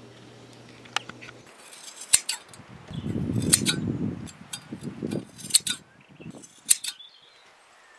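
Sheep shears snipping: a handful of sharp metallic clicks at irregular intervals, with about a second of rustling around the middle.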